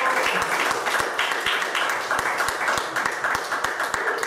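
A small audience applauding, with dense, steady hand-clapping.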